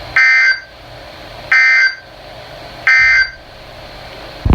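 Emergency Alert System (SAME) end-of-message signal over weather radio: three short bursts of digital data tones about 1.3 seconds apart, over a steady hiss. It marks the end of the severe thunderstorm warning.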